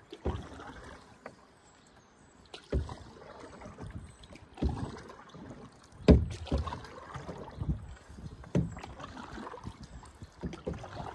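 Paddle strokes of an open canoe on calm river water: a splash and swirl of the blade about every two seconds.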